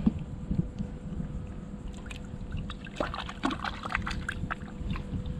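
Small splashes and trickling water from about three seconds in, as a small redfish is slipped back into the water and released by hand. A low rumble of wind on the microphone runs under it.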